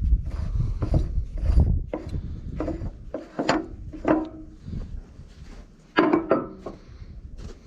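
Irregular clunks, scrapes and short squeaks of parts and tools being handled during a fuel filter change on a log skidder, with a low rumble in the first two seconds.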